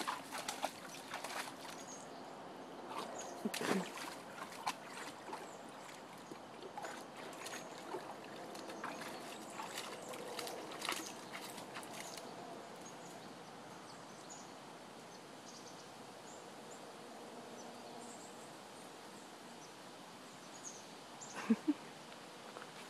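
Greater Swiss Mountain Dog puppy wading in a shallow stream, the water splashing and sloshing around its legs in many short splashes during the first half. It then settles to a steady outdoor hiss as the dog leaves the water, with a couple of sharp sounds shortly before the end.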